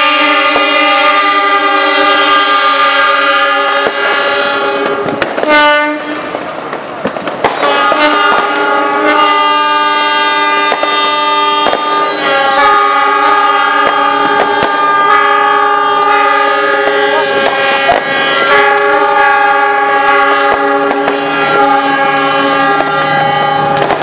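Several diesel locomotive air horns sounding long S35 (Semboyan 35) horn blasts together, forming a dense, steady chord of overlapping tones. About six seconds in there is a short lull while some horns stop and others start, and then the chorus carries on.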